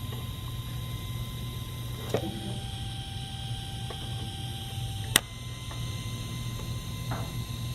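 A steady low electrical hum with a faint high whine, broken by two sharp clicks, about two and five seconds in.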